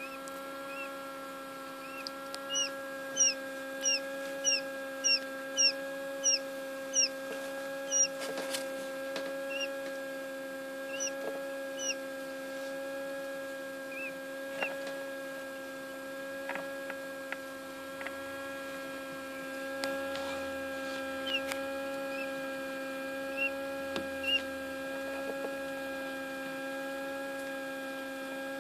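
Newly hatched quail chick peeping: a quick run of about a dozen short high peeps, roughly two a second, then scattered single peeps. Under them runs the steady hum of the egg incubator.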